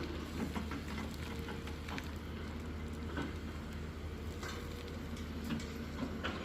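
Hyundai excavator's diesel engine running steadily, with scattered knocks and rattles from the mud and stones being loaded.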